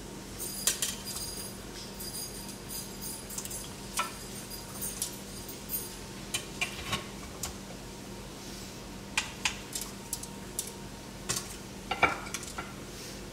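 Scattered light clinks and knocks of kitchen utensils, dishes and the pressure cooker's metal inner pot, coming irregularly with gaps of up to a couple of seconds. A faint steady hum runs underneath.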